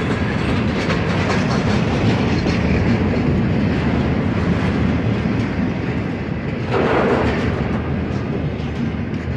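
Double-stack intermodal freight train's container well cars rolling past at close range: a steady rumble of steel wheels on rail with clicking over the rail joints. A louder rush comes about seven seconds in.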